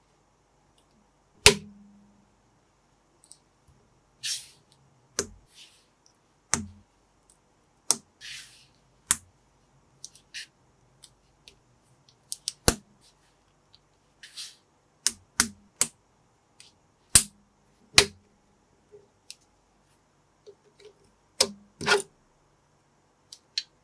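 Lego-compatible plastic bricks and minifigure parts clicking and snapping together as they are pressed into place by hand: irregular sharp clicks, with a few short rustling scrapes of plastic between them.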